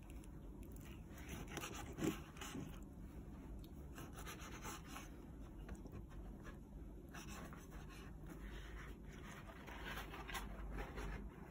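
Kitchen knife chopping raw horse mackerel on a wooden cutting board: soft, irregular taps and scrapes of the blade on the board, with one louder knock about two seconds in.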